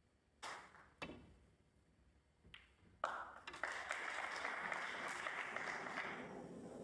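Snooker balls clicking: the cue strikes the cue ball, then the cue ball strikes another ball about half a second later, with a fainter click a second and a half after that. From about three seconds in, the arena audience breaks into applause and noise, reacting to a good escape hit whose cue ball goes in-off.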